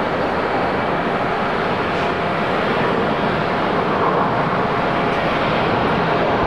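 Boeing 777-300ER's GE90 jet engines running as the airliner rolls out on the runway after landing. The noise is steady and grows a little louder about four seconds in.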